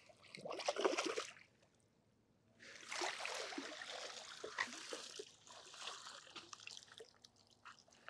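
Water being poured or splashed, in two bursts: a short one about half a second in, then a longer, steadier run from just under three seconds in until about seven seconds.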